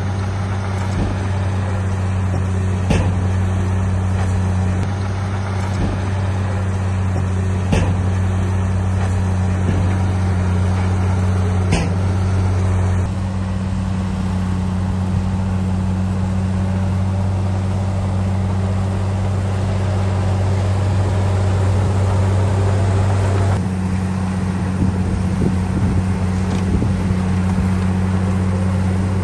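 Heavy diesel engine of earthmoving equipment running steadily with a deep drone. Sharp metallic knocks come three times in the first half. The engine note shifts abruptly twice.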